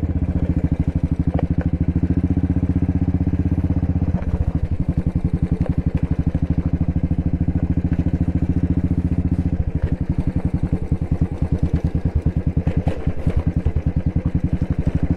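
Royal Enfield Bullet single-cylinder engine running under way, its exhaust beat a fast, even train of thumps; the engine note changes about four seconds in.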